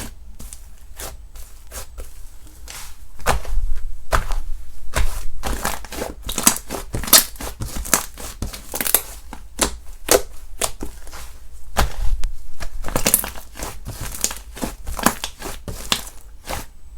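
Slime being squeezed and played with by hand, making irregular crackling clicks and pops, busiest from about three seconds in.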